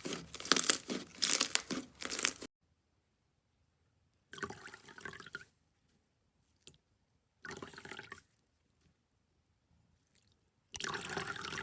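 Slime being squeezed and pressed by hand. First comes a dense run of crackling, popping clicks. After a silent gap there are short bursts of wet squishing, each cut off by silence, and a single faint click in between.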